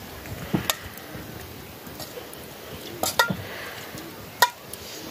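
A metal spoon clinking against a small steel pot as oil is spooned from it into a wok: a few sparse clinks with a short ringing tone, the loudest near the end.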